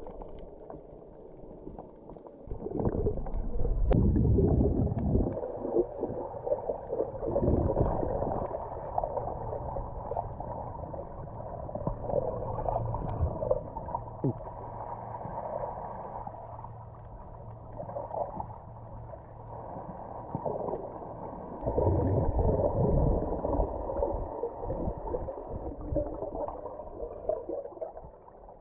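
Muffled underwater water noise picked up by a camera in a waterproof housing while snorkeling: low sloshing and gurgling, swelling louder twice, a few seconds in and again about three quarters of the way through.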